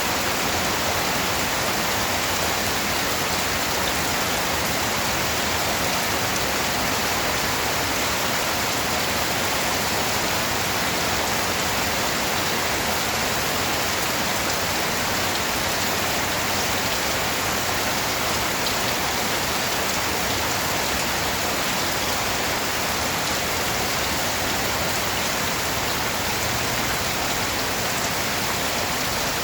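Steady rain falling, an even hiss that holds level throughout with no thunder or other events.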